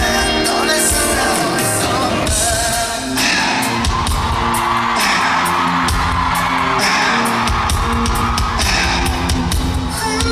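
Pop music with singing played loud at a live concert. From about three seconds in, audience screaming rises over the music.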